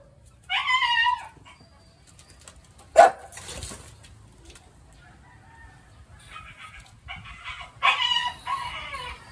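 A dog whining in short high cries, excited at a rat in a wire cage trap, with a sharp clank about three seconds in as it strikes the cage. More cries come near the end.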